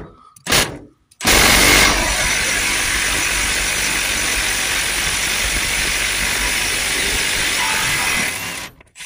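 Cordless impact wrench with a 13 mm socket undoing a cross-member bolt under a car: two short trigger blips, then a steady run of about seven seconds that stops shortly before the end.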